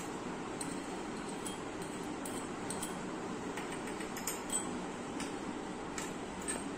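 Scattered faint light clinks of small stainless-steel miniature cooking vessels being touched and moved on a wooden table, over a steady room hiss.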